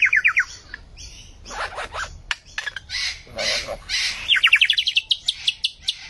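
Lyrebird singing a run of mimicked calls: fast trains of sharp downward-sweeping notes, about eight a second, at the start and again from about four seconds in, with harsher noisy calls in between.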